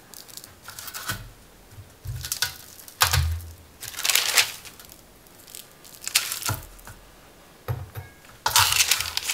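Cookie dough balls being placed on a parchment-lined baking sheet and pressed flat with a flat-bottomed glass: a series of short rustles and crinkles of the parchment paper, with soft thumps on the tray.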